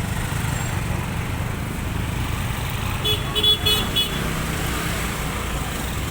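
Steady rumble of road traffic, with a vehicle horn tooting in several quick short blasts about three seconds in.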